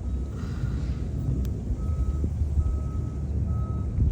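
An electronic beeper repeating one short high beep a little more than once a second over a low, steady engine-like rumble, with a brief click about a second and a half in.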